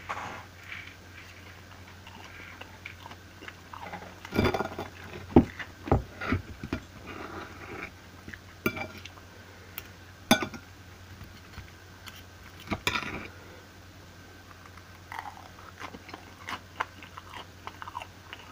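Close-up eating sounds: chewing, with a metal knife and fork scraping and clicking against a ceramic plate while cutting pancake, several sharp clinks scattered through. A low steady hum underneath.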